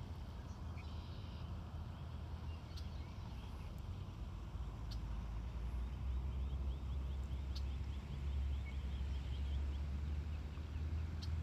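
Steady low rumble, heavier about halfway through, with faint high bird chirps and a quick run of short peeping calls in the middle among foraging geese and goslings.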